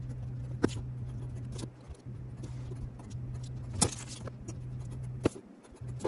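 Scissors cutting out paper squares: four sharp snips spaced a second or more apart, over a steady low hum.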